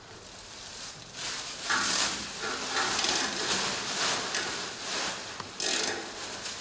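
Plastic shipping wrap crinkling and rustling as it is handled and pulled off the machine, in uneven bursts that are loudest about two seconds in and again near the end.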